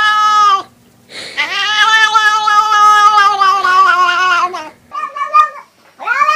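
A domestic cat making long, drawn-out weird meows. The first ends about half a second in, a long one lasts about three and a half seconds and sags in pitch as it ends, and a short one follows about five seconds in. Another call begins at the very end.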